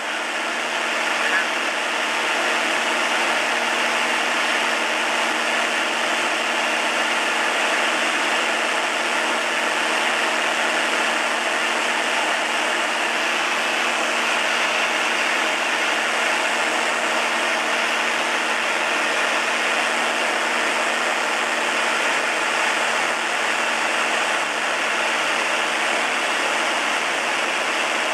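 Turbocharged Van's RV-6 piston engine and propeller heard from inside the cockpit in flight: a steady drone under a constant rush of noise, unchanging throughout.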